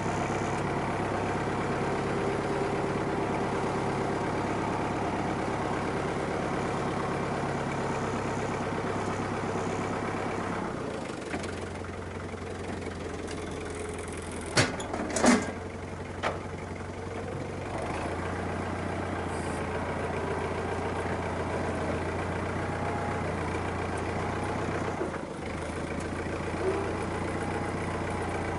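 Diesel farm tractor engine running steadily, easing off for a few seconds around the middle. A few sharp knocks or bangs come near the middle, two of them close together.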